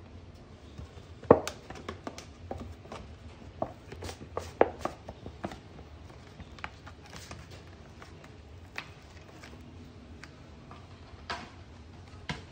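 Milk carton being handled as milk is poured into a stainless steel frothing pitcher: a string of sharp knocks and clicks, the loudest about a second in and again about four and a half seconds in, then a few scattered clicks.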